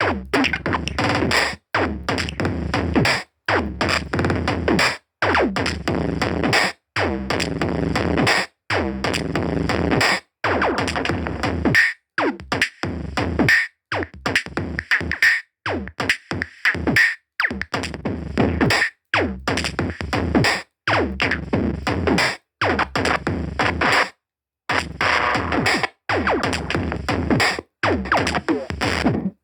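Electronic music with a drum machine and synthesizer, chopped by short silent gaps at an even spacing of about one every second and three-quarters.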